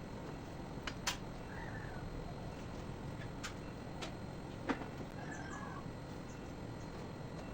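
Faint short bird calls in the background, twice, over steady room noise, with a few sharp clicks and knocks, the loudest about a second in and near the five-second mark.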